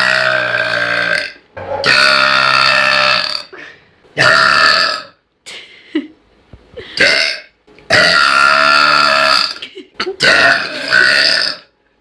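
A person burping loudly, a run of about six burps with short pauses between them. The first two and the fifth are long and drawn out, each lasting well over a second, and the others are shorter.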